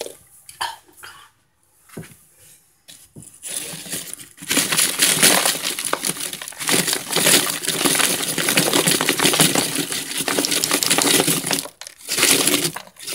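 Baked cornstarch chunks crunching and crackling as the end of a cornstarch box is pressed down into them in a plastic container. A few scattered crackles at first, then dense continuous crunching from about four seconds in, with a short break near the end.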